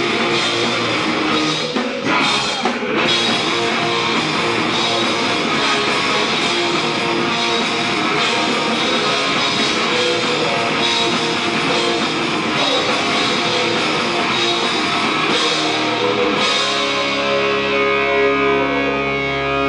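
Live heavy rock band playing loud, distorted electric guitars, bass and drum kit. About three-quarters of the way through, the drums stop and a held chord rings out.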